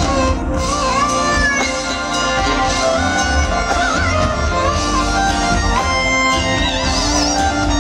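Live band playing, led by an electric guitar holding sustained notes with bends and vibrato over bass and drums.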